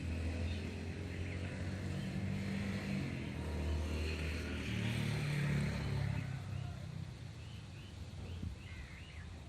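A motor vehicle engine running, a low hum that shifts in pitch and fades after about six seconds. Short high bird chirps come in over the last few seconds.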